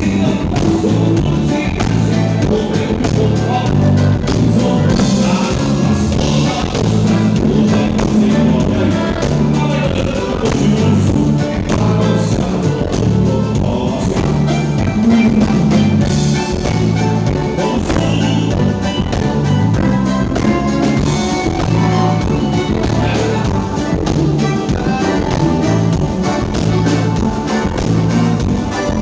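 A band playing music with a steady beat and a repeating bass line, with singing.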